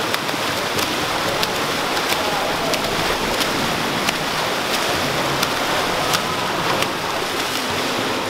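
Several swimmers splashing through fast freestyle: a steady wash of churning water from arm strokes and kicks, with frequent sharp slaps of hands hitting the surface.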